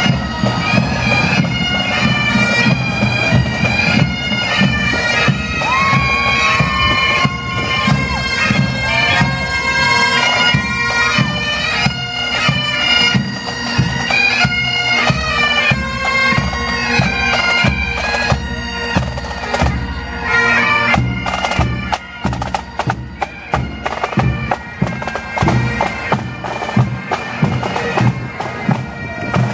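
A marching pipe band: bagpipes playing a melody over their steady drone, with snare and bass drums keeping the beat. In the last third the pipes grow fainter and the drumbeat stands out.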